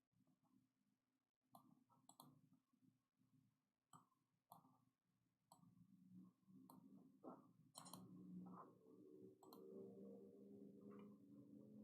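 Very quiet room with scattered faint clicks and light handling noises. A faint low hum comes in about halfway through.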